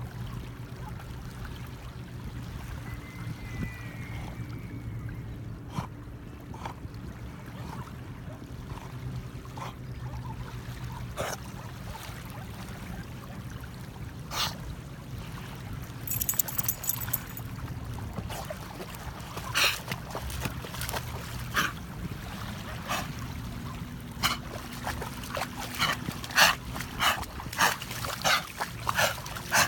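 A dog biting and snapping at small waves, making short splashes of water that come in quick runs and grow more frequent in the second half. Under it runs a steady low drone that fades about two-thirds of the way through.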